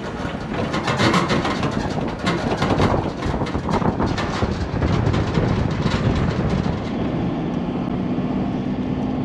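A small boat on its trailer being towed along a road: wind and road rush with frequent rattles and knocks from the boat and trailer. About seven seconds in this gives way to a steadier hum with a low drone from the towing vehicle.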